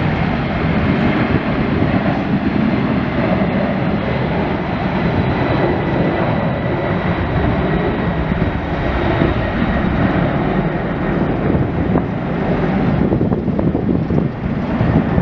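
Boeing 747's four jet engines at takeoff power: a loud, steady rumble with a faint high whine over it as the airliner rolls down the runway and lifts off.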